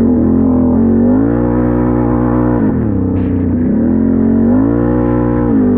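Can-Am 1000 ATV's V-twin engine under way, revving up and easing off twice: the pitch climbs near the start, holds, drops about halfway, then climbs again and falls back near the end.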